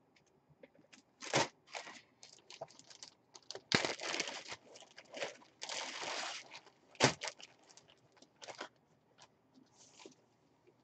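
Clear plastic bag around a jersey crinkling and rustling in irregular bursts as it is handled, with one sharp click about seven seconds in.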